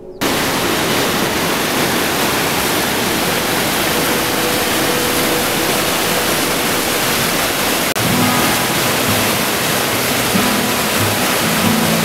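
Water pouring over a low weir into a pool: a steady, loud rushing that starts abruptly just after the start. Soft background music plays underneath.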